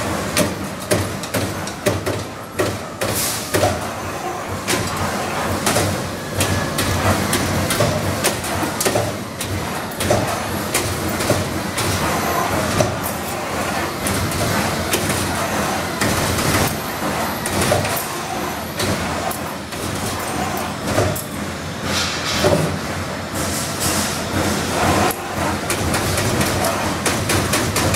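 Sheet-metal punching machine running on a factory floor: a continuous mechanical din with frequent, irregular sharp clanks and knocks.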